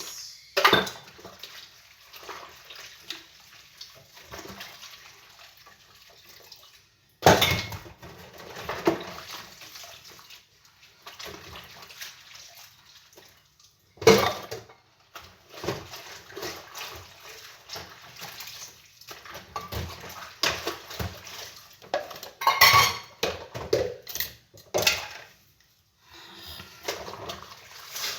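Dishes being washed by hand at a sink: irregular clinks and knocks of plates and cutlery over running water, with a few louder clatters.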